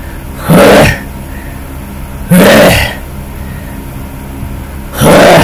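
A man making three loud, harsh gagging noises of disgust into a headset microphone, each about half a second long and so loud they distort.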